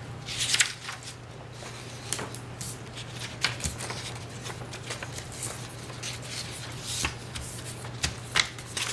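Hands working with paper sheets and ink bottles on a tabletop: light rustling and scattered soft taps and clicks, over a steady low hum.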